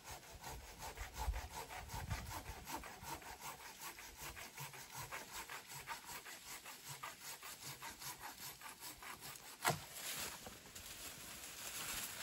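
Hand saw cutting through dead wood in steady back-and-forth strokes, faint at a distance. A single sharp crack about ten seconds in is the loudest moment.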